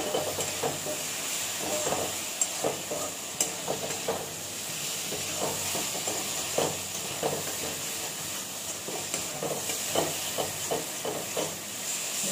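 A spatula stirring and scraping okra in a stainless steel kadai, with irregular scrapes and taps against the pan. Under it runs a steady sizzling hiss of the okra frying.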